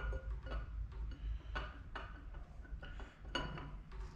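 Steel camshaft being slid into the cam bearings of a V6 engine block, its lobes and journals knocking lightly against the bearings and block in a string of irregular metal clicks and clinks.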